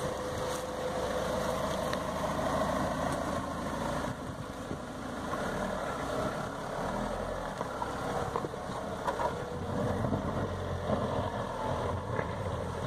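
Land Rover Discovery Sport engine running at low revs as the SUV crawls slowly over a rutted dirt track, a steady low hum with a few small crackles later on.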